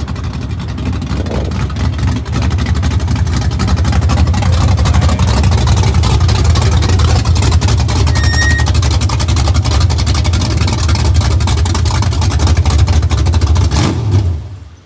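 Small-block Chevy 355 V8 of a 1976 Chevy Nova drag car running close by at low speed, getting louder over the first few seconds as the car comes near. The sound cuts off near the end.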